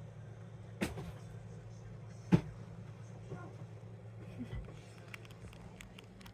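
Two sharp knocks, the second much louder, over a steady low hum, followed near the end by faint, quick, irregular ticking.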